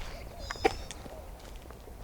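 Footsteps on a trail, with a sharp snap about half a second in and a brief high bird chirp at the same moment.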